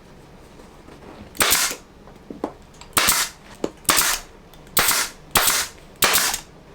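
Staple gun firing repeatedly as a seat cover is fastened on: six sharp shots, roughly a second apart, starting about a second and a half in.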